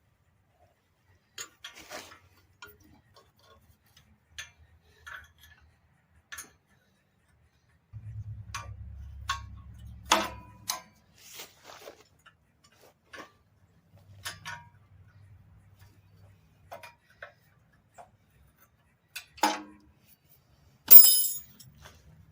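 Hand wrench working on the mower's muffler bolts: scattered metal clicks and clinks, with a low hum for a couple of seconds mid-way. Three louder ringing metal clinks stand out, the loudest near the end.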